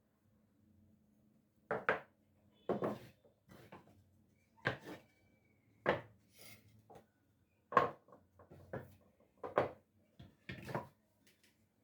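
Pieces of scrap wood being handled and set down on a workbench: about a dozen irregular knocks and clatters, starting about two seconds in.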